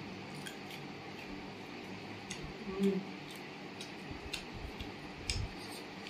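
Quiet eating sounds: scattered small clicks and taps from fingers working rice on ceramic plates and cucumber being bitten and chewed, with a couple of soft thumps.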